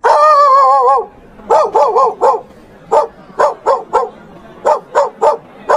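A dog gives a long, wavering howl lasting about a second. It then breaks into a run of short, sharp barks in quick bunches of two to four: an agitated dog fussing.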